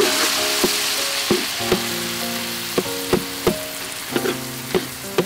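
Stir-fry sizzling in a wok as cooked eggplant is tossed with minced pork and shrimp, a metal spatula scraping and knocking against the wok about every half second. The sizzle is loudest at first and slowly dies down.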